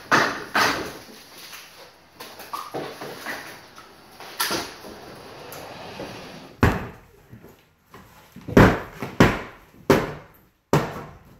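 A series of sharp wooden knocks and thuds as boards and framing are pried and pulled loose during house demolition, the loudest blows coming in the second half.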